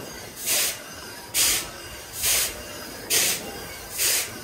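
Spinning fairground thrill ride running, with short hisses repeating evenly a little faster than once a second over a steady background din.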